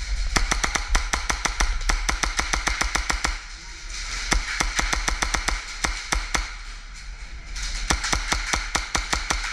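Airsoft gunfire: strings of sharp snapping shots, several a second. They come in two dense runs near the start and near the end, with sparser shots in between.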